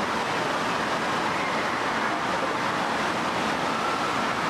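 Steady, even rushing noise of water-park ambience: running water and a distant din, with no break or change.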